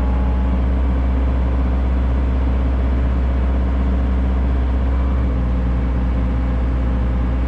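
Excavator's diesel engine running steadily as a continuous low drone, with no change in pitch.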